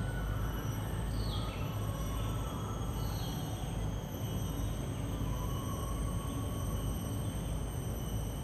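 Outdoor ambience: a steady low rumble under a thin, steady high insect drone, with two short falling bird chirps, one about a second in and one about three seconds in.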